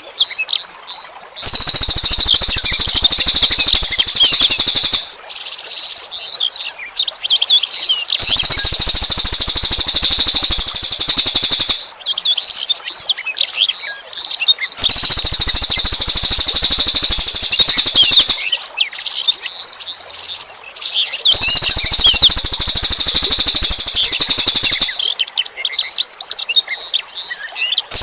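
Small songbird's rapid, harsh 'tembakan' burst song: four loud buzzing rattles of about three and a half seconds each, coming every six to seven seconds, with quieter quick high twittering chirps between them.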